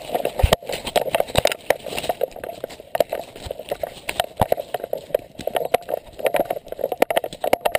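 A dog running through dry fallen leaves, heard from a camera it carries: rhythmic footfalls and leaf crunching with many sharp knocks and clicks.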